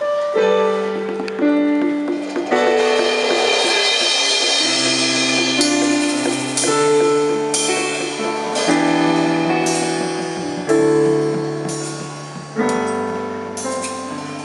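Digital piano played with both hands: slow, sustained chords changing every second or two, an instrumental introduction before the choir comes in.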